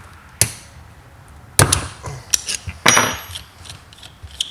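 Hand tools clanking and clicking against metal while a 7/16 wrench loosens the clutch bleeder fitting on a T56 slave cylinder. There are a handful of sharp knocks, and the one near the end of the third second leaves a short metallic ring.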